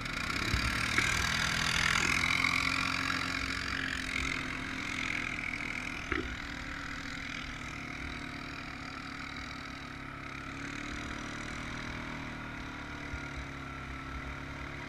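Honda Rancher 420 ATV's single-cylinder engine running. It is louder in the first few seconds, then eases to a steady, lower run.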